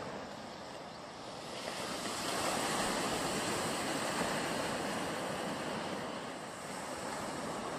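Ocean surf: a steady wash of noise that swells about two seconds in and eases off again near the end.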